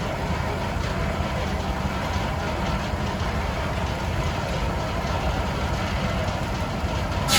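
An engine running steadily, heard mostly as a low rumble. Just before the end the sound cuts abruptly to a louder hiss.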